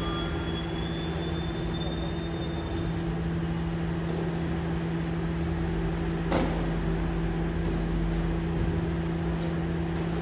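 Garbage truck running with a steady mechanical hum and low rumble. There is a single sharp knock about six seconds in.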